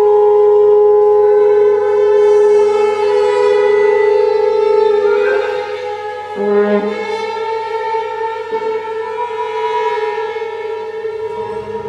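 Chamber orchestra playing long held notes in strings and brass, several pitches sounding together. The sound drops somewhat in level about halfway through as new, lower notes enter.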